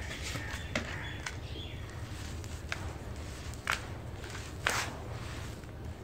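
Dry red dirt being crumbled by hand in a bowl: soft gritty crunching with a few scattered sharp crackles of clumps breaking, the loudest about three-quarters of the way through.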